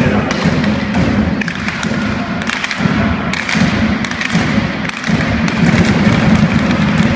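Repeated thuds and knocks in an ice hockey arena.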